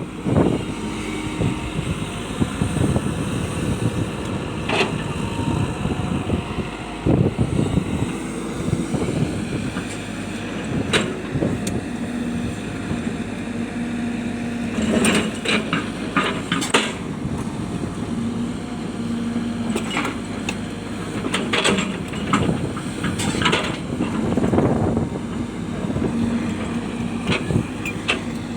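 Hitachi excavator's diesel engine running steadily under work, with scattered sharp knocks and clatters of rock being struck and moved, several of them bunched together in the second half.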